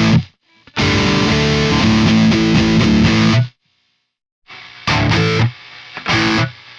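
Distorted high-gain electric guitar through a Mesa Boogie Mark IIC+ amp model: a dense riff for about three seconds that stops abruptly, then two short chord stabs with a steady hiss and hum sounding between them. This is amp noise loud enough to want a noise gate.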